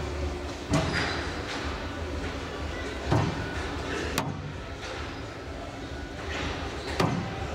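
A squash ball struck by a racket and rebounding off the front wall: a few sharp smacks a second or more apart, each ringing briefly in a large hall.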